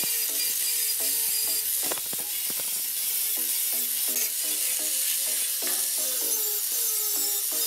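Angle grinder with an abrasive disc grinding rust off a steel shovel blade: a steady, harsh hissing grind of disc on metal.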